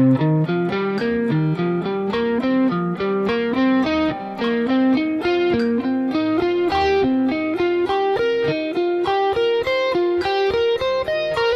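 Electric guitar playing a C minor pentatonic run of single notes at about four notes a second, sixteenth notes grouped in fives so the repeating five-note shape shifts against the beat.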